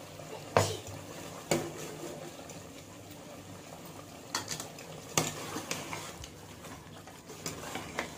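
A steel pot of chicken simmering with a steady hiss, under several sharp metal clinks and knocks as a metal pot gripper and a ladle strike the pot; the loudest clinks come about half a second and a second and a half in.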